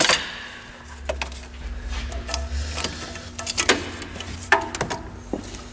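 Clicks and clinks of hose clamp pliers gripping and working a spring hose clamp on an automatic transmission cooler hose. There is a sharp click at the start, scattered knocks after it, and a low rumble during the first half.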